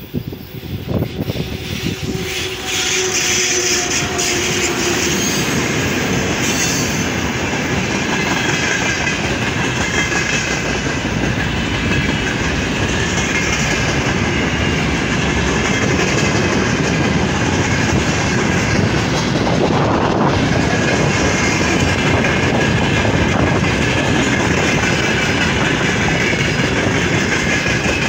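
Electric freight train, hauled by a VL80S locomotive, passing close by: the locomotive comes up and goes by in the first few seconds, then the freight wagons roll past with a steady rumble and wheel clatter on the rails.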